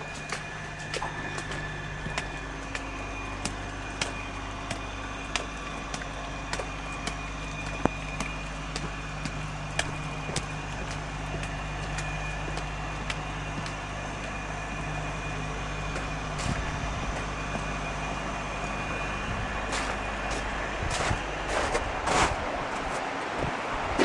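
Steady low mechanical hum of running machinery, with scattered footsteps and taps on wet, slushy ground, busier near the end.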